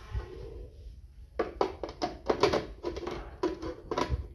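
Clear plastic lid of a food processor being handled and fitted onto its bowl: a quick, irregular run of hard plastic taps and clicks, starting about a second and a half in.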